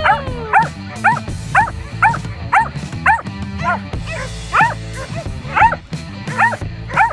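A small dog yipping over and over, about two short high yips a second, with a brief pause about four seconds in.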